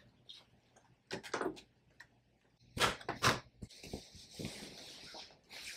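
Garment steamer head being passed over lightweight satin fabric: two brushing swishes, then a longer, softer hiss about four seconds in, and another brief swish at the end.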